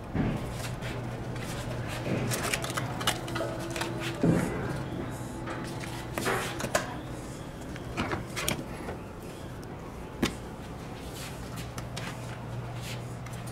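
Irregular clicks, knocks and rustles of a new seat bellows being hooked by hand onto the frame of a Grammer MSG65 suspension seat, over a steady low hum.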